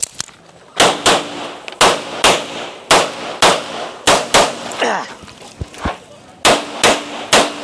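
Rapid pistol fire: a string of about a dozen shots, many in quick pairs, as a shooter runs a practical shooting stage. A metallic ring lingers after several of the shots.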